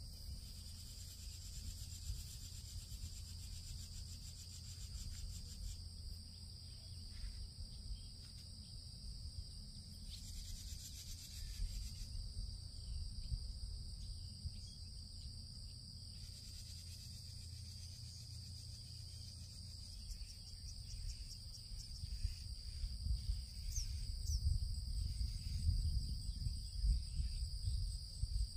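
A steady, high-pitched chorus of insects, crickets or the like, runs throughout. Under it is a low rumble that grows stronger and more uneven in the last several seconds.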